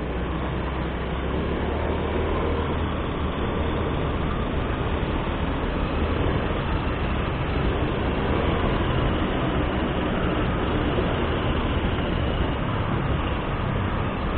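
Steady rush of wind and road noise while riding a Honda Beat scooter, with the scooter's small single-cylinder engine humming low underneath.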